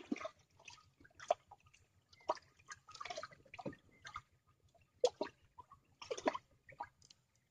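Water splashing and dripping close beside a wooden canoe: a dozen or so short, irregular wet sounds.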